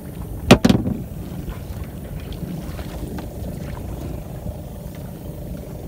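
Small engine running steadily with a low hum. Two sharp knocks about half a second in stand out above it.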